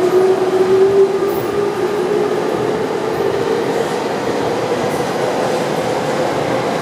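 Tobu 100 series 'Spacia' electric express train running alongside the platform with a steady rolling rumble. Over it is a whine that slowly rises in pitch over the first few seconds and then holds.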